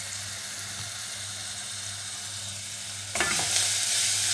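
Chopped onion and seasoning sizzling in hot oil in a stainless steel saucepan. About three seconds in, a wooden spoon starts stirring, scraping the pan, and the sizzle gets louder.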